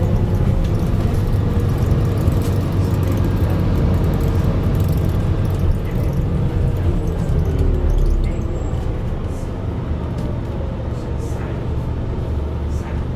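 Scania N230UD double-decker bus's diesel engine and driveline running under way, heard from inside the lower deck as a steady heavy rumble. A whine falls in pitch near the start and again around the middle, and the rumble gets quieter about eight seconds in.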